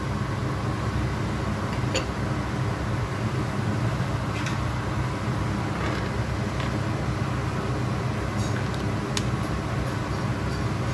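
A steady low hum, with a few light clinks of a metal spoon against the cooking pot as spices are stirred into the boiling fish broth.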